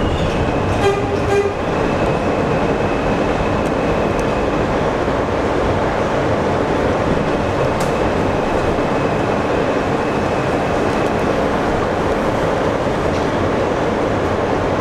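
New York City subway train running through a tunnel, heard from the front car: a steady rumble of wheels on the rails. A thin high whine comes and goes over it, and a short, higher tonal sound comes about a second in.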